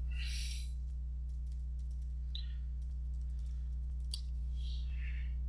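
Computer keyboard typing, scattered keystroke clicks as an email address is entered, with one sharper click a little after four seconds, over a steady low electrical hum.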